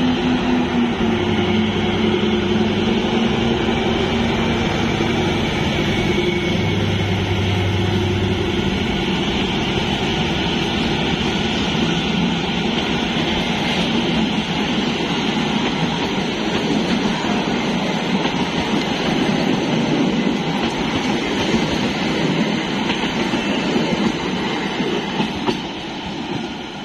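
ZDM-3 narrow-gauge diesel locomotive passing at speed, its engine note dropping about a second in as it goes by. Then its coaches roll past with a steady clatter of wheels on the rails, fading near the end as the last coach passes.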